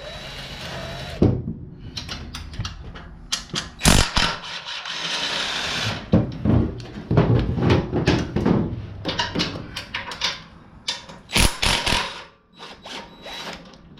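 Hand tools working on a small engine's mounting bolts: a run of irregular metal clicks and knocks, with a stretch of rattling about four to six seconds in.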